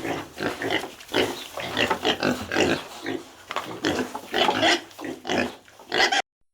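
Pigs grunting and squealing in quick succession, several short calls a second, cutting off abruptly near the end.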